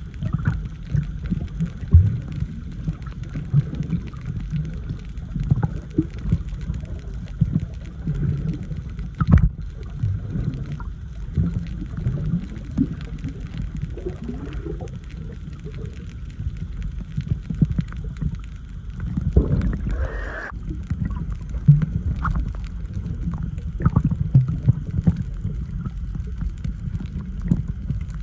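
Underwater water noise heard through a submerged microphone while snorkelling: a muffled low rumble with scattered pops and clicks, and a short bubbly rush about twenty seconds in.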